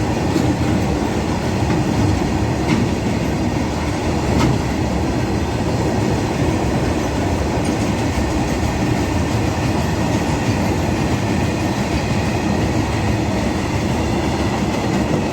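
Train running at speed: a steady, loud rumble of wheels on rails, with a few sharp clicks in the first few seconds.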